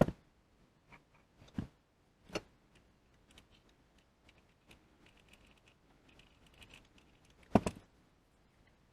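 Scattered sharp clicks and knocks of small metal lathe parts and hand tools being handled and set down, the loudest at the very start and near the end, with light rattling in between.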